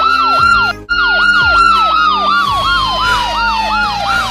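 Emergency vehicle sirens: a fast yelp repeating about three times a second over a slower wail that glides steadily down in pitch. Both cut out briefly just under a second in.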